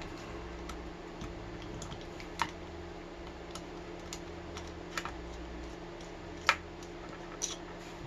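Scattered light metallic clicks, about seven in all at uneven intervals, as a screwdriver works a Loctite-held Phillips screw in a padlock body, over a faint steady hum.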